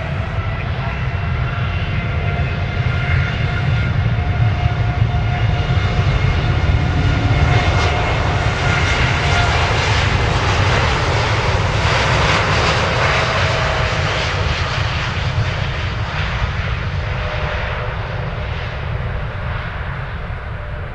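Rolls-Royce Trent 1000 turbofans of a Boeing 787 running loud as the jet rolls past on the runway: a whine of several tones over a rushing noise that swells to a peak about halfway through, then fades as the aircraft moves away.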